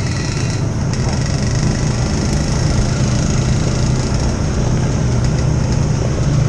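ATV engine running steadily while the quad is ridden along a dirt trail, with continuous ride noise.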